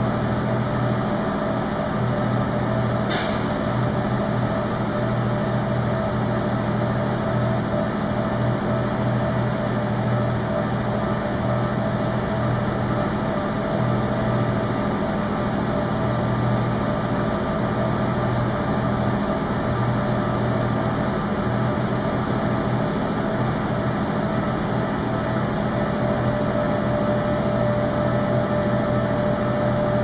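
Vehicle engines idling in stopped traffic, with a heavy truck among them. Over them sounds the steady, rapidly repeating electronic ding of a Japanese level-crossing alarm warning of an approaching train. A single sharp click comes about three seconds in.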